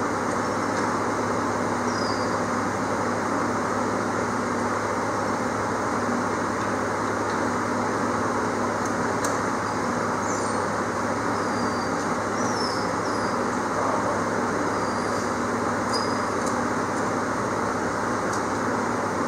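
A steady rushing noise with a low, even hum, as of a running fan or motor, with a few faint light clicks and squeaks over it.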